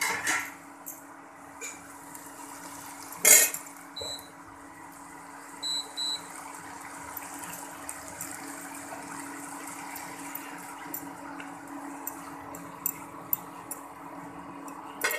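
Induction cooktop humming steadily under a pan of oyster mushrooms frying, with one loud clatter about three seconds in and three short high electronic beeps from the cooktop between about four and six seconds. A few light spatula knocks come near the end.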